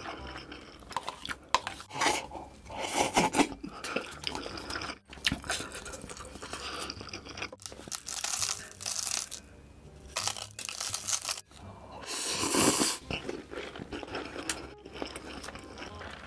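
Close-miked crunching and chewing of crisp black ghost pepper chips, in short irregular bursts. About halfway through, crushed chips are tipped from a glass bowl onto a cup of noodles with a dry rattling rustle.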